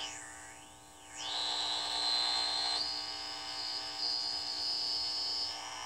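Heathkit T-3 signal tracer's speaker giving a high whistle that sweeps in pitch as a front-panel knob is turned, then holds steady and stops shortly before the end, over a steady mains hum.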